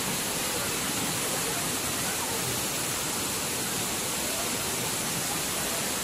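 Steady rushing of a waterfall pouring down rock ledges, an even white-water noise without breaks.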